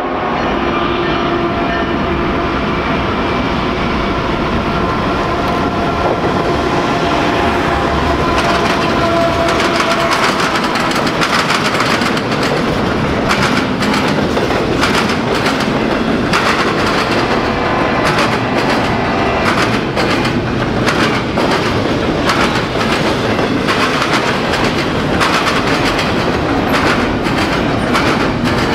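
Double-stack intermodal freight train passing: the two GE diesel locomotives' engines go by first, then a long run of container well cars whose wheels click repeatedly over rail joints.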